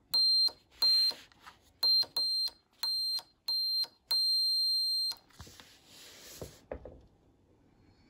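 Small electronic buzzer in a battery-powered breadboard circuit beeping as its push button is pressed: seven high-pitched beeps of one steady tone, unevenly spaced, the last held for about a second. A short rustle and a couple of soft knocks follow.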